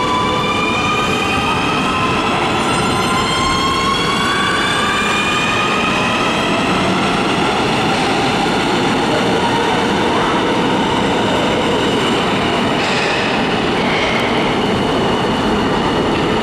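Nuremberg U-Bahn train pulling out of an underground station past the platform. The electric whine of its drive climbs in pitch over the first few seconds, over a steady rumble of wheels on rails as the cars go by.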